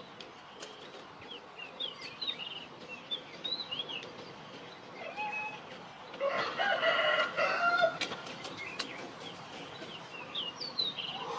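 A rooster crows once, about six seconds in, a single call lasting nearly two seconds. Small birds chirp throughout.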